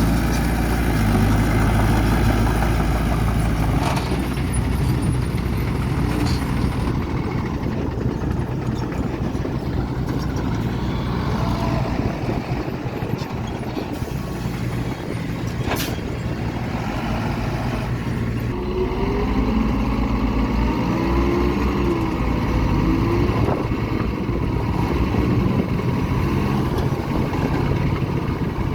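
Heavy diesel earthmoving machinery, a bulldozer and dump trucks, running at work, with the engine pitch rising and falling in the second half and a few sharp metallic clanks, the loudest about halfway through.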